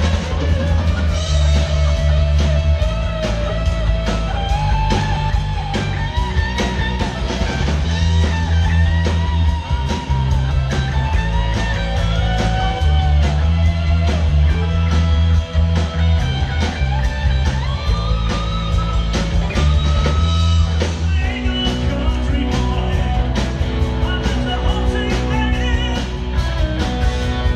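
Live rock band playing through a PA: guitars over a heavy bass line and a steady drum beat, with the arrangement changing about two-thirds of the way through.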